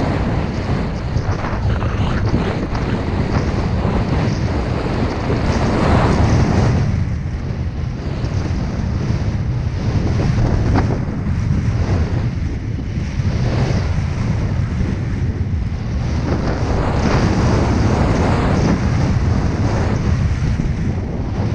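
Wind rushing over an action camera's microphone as a snowboard runs down through snow. The hiss of the board swells and fades every few seconds with the turns.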